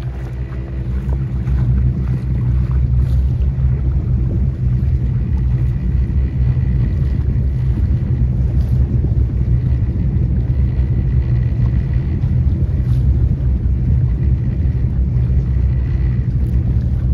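Boat engine running steadily as a low drone while under way. It grows louder about two seconds in and then holds.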